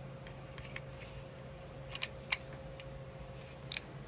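Scattered sharp plastic clicks and snaps from handling a fish weighing scale while trying to pull out its built-in measuring tape, with a faint steady hum underneath.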